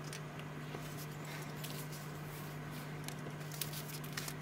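Faint scattered clicks and soft rustles of fingers handling a leather watch strap and its steel buckle, over a steady low hum; the clicks come more often near the end.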